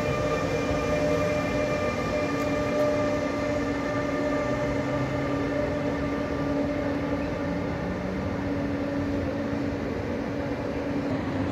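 ÖBB class 1116 Taurus electric locomotive accelerating away with a Railjet: its traction converter whines in several steady held tones over the rumble of the wheels on the rails.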